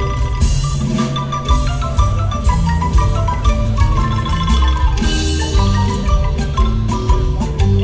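Marimba music: many quick, short mallet-struck notes with a steady low bass beneath.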